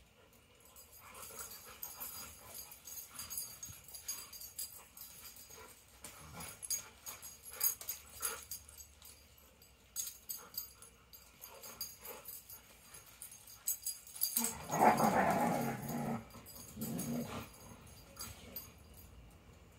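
Two dogs play-wrestling: scattered scuffs and clicks of paws and jaws on dirt. About three-quarters of the way through comes a louder drawn-out play growl, then a shorter one.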